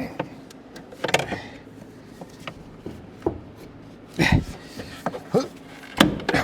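A steel pry bar working against engine and engine-bay parts: several separate knocks and scrapes, the loudest a little past halfway through.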